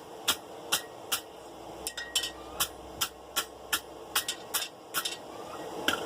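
Wire brush scrubbing forge scale off a hot steel bar in quick, even strokes, about two or three a second.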